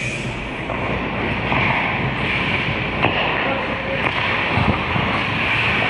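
Ice hockey rink sound at the goal net: a steady scraping hiss of skates on the ice, broken by a few sharp knocks.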